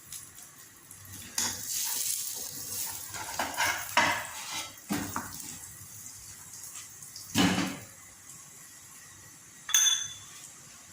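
Kitchen pans and utensils clattering: a series of knocks and scrapes, the loudest a heavy knock about two-thirds of the way in, and a short metallic clink with a brief ring near the end.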